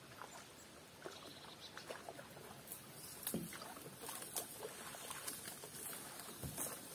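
A paddle dipping and splashing in river water as a small boat is paddled toward the bank, the strokes getting louder from about halfway through.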